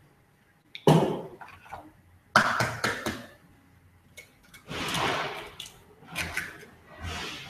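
Eggs cracked against the rim of a mixing bowl and broken into it: a few sharp cracks a second or two apart, with softer shell-handling sounds after them.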